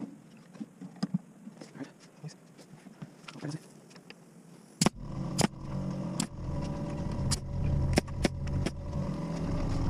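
Pneumatic brad nailer fired about six times as sharp snaps in the second half, over the steady hum of an air compressor motor that starts about halfway through and grows louder. Light handling clicks and knocks before it.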